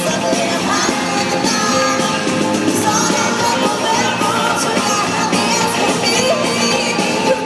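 Live country-rock band with electric guitars and drums playing loudly, with a female lead vocal singing over it, heard from the arena seats.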